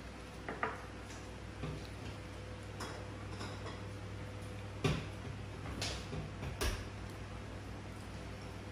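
Chopsticks and spoons clicking and tapping against ceramic bowls during a meal, in about half a dozen scattered light knocks over a low steady hum.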